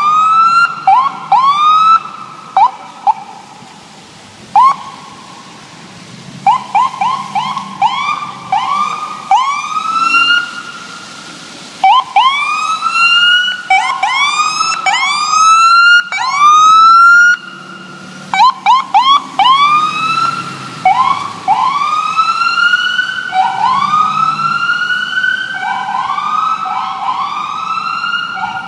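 Electronic emergency-vehicle sirens sounding short rising whoops over and over: each sweep climbs and levels off, in quick runs with brief gaps and a quieter spell a few seconds in.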